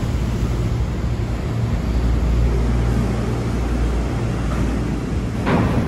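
Chiba Urban Monorail suspended car, running on rubber tyres inside the overhead box-girder track, passing directly overhead with a steady low rumble. A short hiss comes about five and a half seconds in.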